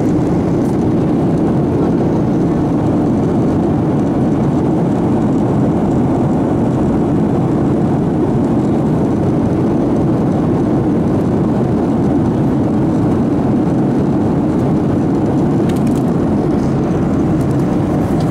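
Steady cabin noise inside an airliner in flight: an even, unbroken drone of engines and airflow, strongest in the low-mid range.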